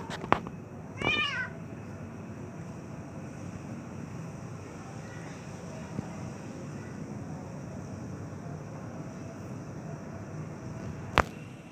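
A domestic cat gives one short meow about a second in. A sharp click comes near the end over a steady low background hiss.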